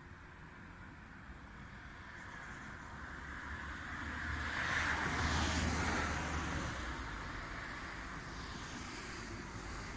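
A car driving past on a road: tyre and engine noise rises to a peak about halfway through, then fades, with a smaller swell near the end.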